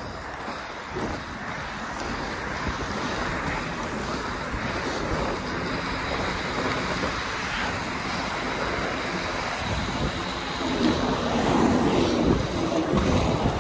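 Inline skate wheels rolling on wet asphalt, a steady noisy hiss and rumble, with wind rushing over the microphone. The rumble gets louder about eleven seconds in.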